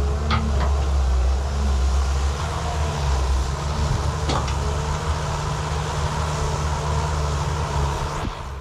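Excavator's diesel engine running steadily under load, with a few sharp knocks from the machine. The engine sound dips briefly near the end.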